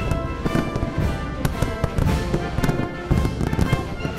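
Music with a steady beat over the bangs and crackle of a large aerial fireworks salute.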